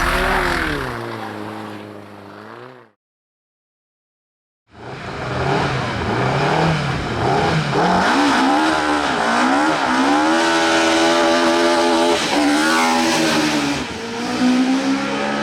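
Hillclimb race car engine revving hard, its pitch rising and falling with gear changes as it fades away, then a cut to about two seconds of dead silence. Then another race car accelerating at full throttle, revs climbing and dropping with each upshift and braking.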